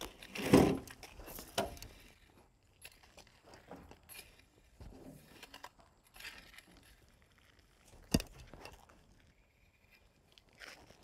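Metal rake scraping and spreading stone dust over a gravel walkway base: intermittent crunchy scrapes, louder near the start, with one sharp knock about eight seconds in.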